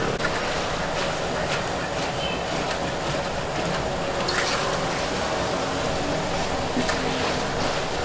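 Steady ambient noise of a street food stall, with a few sharp clicks and clatters.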